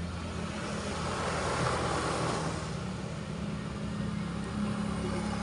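A steady low engine hum, likely motor traffic, with a swell of noise that builds and fades about two seconds in, as of a vehicle passing.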